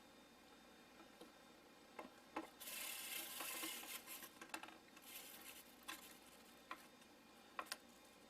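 Faint handling sounds of the stick vacuum's parts being fitted together: a handful of sharp clicks and two brief scraping rubs, the longer one about two and a half seconds in. The vacuum motor is not running.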